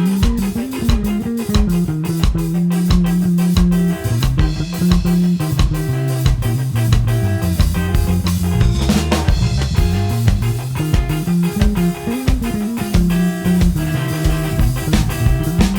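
Live band instrumental passage: a bass guitar line carries the music, changing notes steadily, over drum kit with guitar. There are no horns or singing in it.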